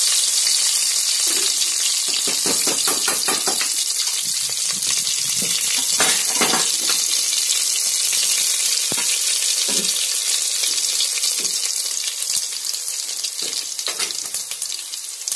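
Garlic cloves frying in hot oil with mustard and cumin seeds for a tempering: a steady, hissing sizzle with scattered crackles and pops, easing slightly near the end.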